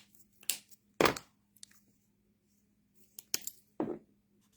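Paper crafting at a table: a handful of short scratches and rustles of cardstock and tools being handled, the loudest about a second in and a pair near the end.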